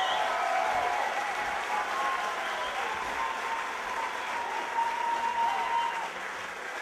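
Audience applauding and cheering, slowly dying down.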